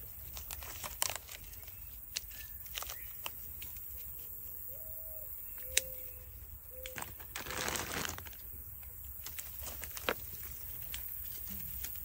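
Leaves and wild grapevines rustling and crackling as grape clusters are handled and picked, with scattered small snaps and a longer rustle about seven and a half seconds in.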